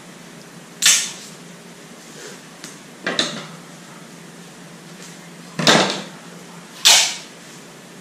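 Packing tape pulled off a handheld tape dispenser and torn off in short rips, four of them, the last two close together.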